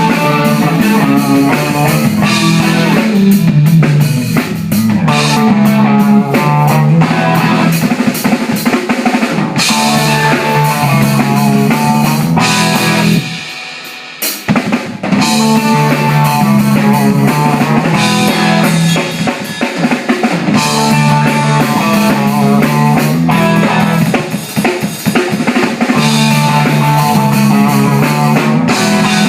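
Live band playing loud rock music, with a drum kit and its cymbals over electric guitar. The band breaks off for about a second roughly halfway through, then comes back in.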